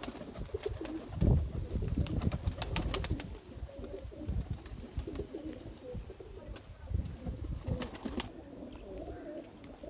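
A flock of domestic pigeons cooing in a low, wavering murmur, with scattered sharp clicks among the birds.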